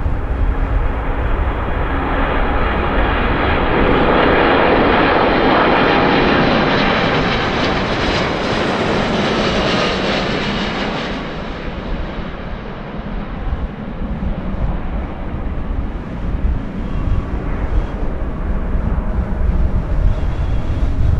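Boeing 777-346 airliner on final approach, its jet engine noise swelling as it passes low overhead. The noise peaks about eight to ten seconds in, then fades to a low rumble that rises again near the end.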